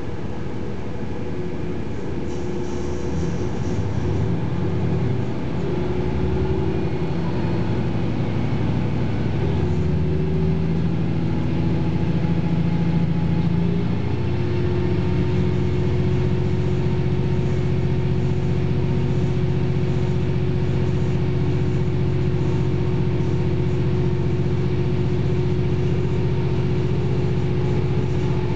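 KiHa 40 series diesel railcar heard from inside the cabin as it pulls away from a station: the underfloor diesel engine works harder and grows louder over the first half, then settles into a steady drone as the train gathers speed.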